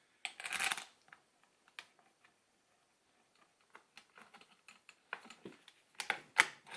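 Light clicks and scrapes of a hex key turning a rifle's front action screw through the synthetic stock. A few sharper metallic clicks and knocks come near the end as the rifle is handled.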